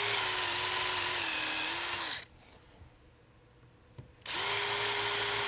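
Cordless drill boring out epoxy filler from a hole in a wooden rifle stock: a steady motor whine whose pitch sags a little as the bit bites, stopping about two seconds in. After a click the drill starts again about four seconds in and runs on.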